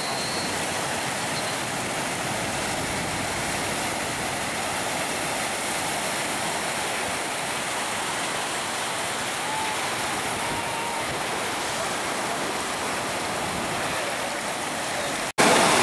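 Ocean surf: a steady roar of waves breaking on a sandy beach. Near the end the sound cuts out for an instant, then the surf comes back louder.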